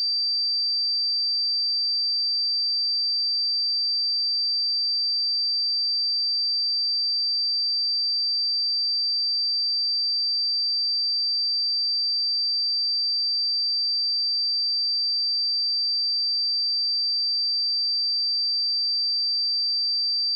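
A pure 4674 Hz sine-wave test tone, held steady at one high pitch and constant loudness.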